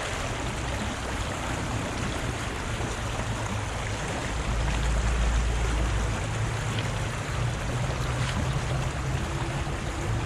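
River water rushing steadily over rocks, an even hiss-like rush with no pauses. A deeper low rumble swells briefly about halfway through.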